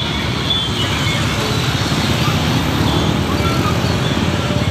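Street traffic: motor scooter and car engines running as they pass, a steady low rumble with a fast even pulse that grows a little louder near the end.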